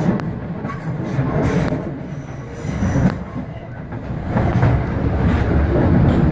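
Passenger train running on the track: a steady wheel-and-rail rumble that swells and fades, with a few sharp knocks from the rails.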